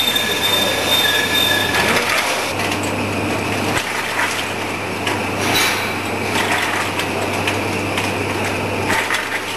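Rotary bottle washing, filling and capping machine running steadily: a constant motor hum and conveyor rattle, with scattered clinks of amber glass bottles knocking together as they feed around the star wheel.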